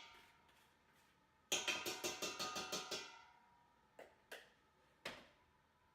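A spoon or whisk clacking against a mixing bowl while cookie dough is beaten: a quick run of about ten sharp taps, then three single taps.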